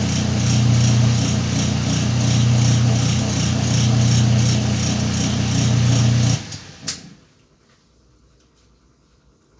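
Whirlpool washing machine running its wash cycle with a steady motor hum and an even pulsing swish. It cuts off abruptly about six seconds in, followed by a single click.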